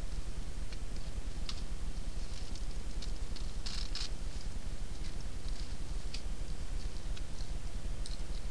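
Faint scattered clicks and scratches, thickest about four seconds in, over a steady low rumble.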